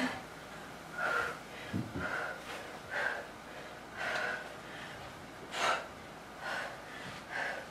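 A woman breathing hard through a set of rolling V-ups, with short sharp exhales and gasps about once a second: the heavy breathing of hard exertion in a high-intensity interval.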